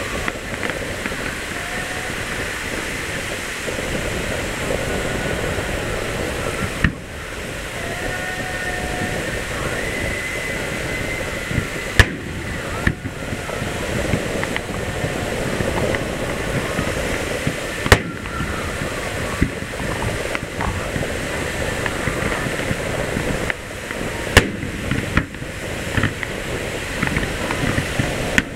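Fireworks display: a steady rushing hiss under sharp bangs of bursting shells. Four loud bangs come about six seconds apart, with a few smaller pops between them near the end.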